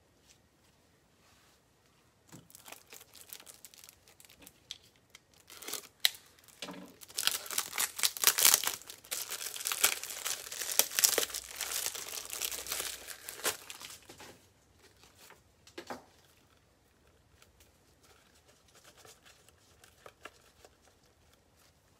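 Plastic wrapping being crinkled and torn off. A dense run of crackling builds, is loudest in the middle, and then thins out to a few scattered rustles.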